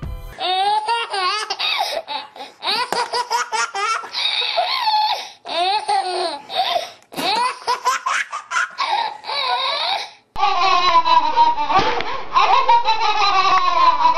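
A baby's belly laughter in quick repeated bursts with short breaks. About ten seconds in it cuts suddenly to two babies laughing together.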